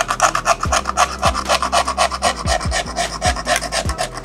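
Rapid scraping of a cutter blade against a phone's frame, about five strokes a second, clearing away leftover shards of the broken screen glass.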